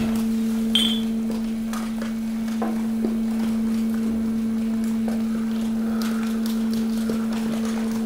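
Hydraulic waste press running with a steady, even hum at one pitch while its ram compacts mixed waste. Scattered cracks and clinks come from plastic and glass bottles being crushed and shifted.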